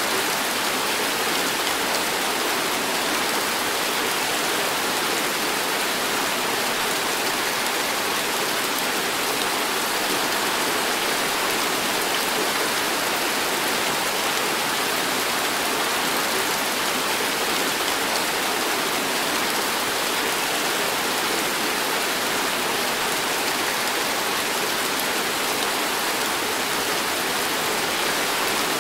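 Heavy tropical downpour: a steady, unbroken hiss of rain hitting a wet paved walkway and garden beds.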